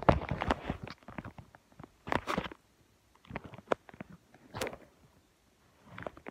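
Close handling noise of a phone being moved about against clothing: scattered clicks, knocks and rustles in short bursts, with quiet gaps between.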